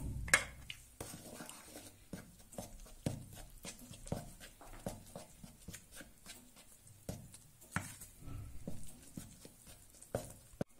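Metal spoon stirring water and yeast into flour in a plastic mixing bowl: light, irregular scraping and clicking of the spoon against the bowl, with a sharper knock about half a second in.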